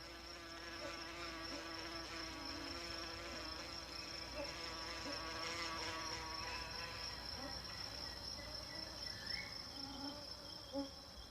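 Male ichneumonid wasp buzzing in flight, its wing hum wavering in pitch, over a steady high-pitched insect trill.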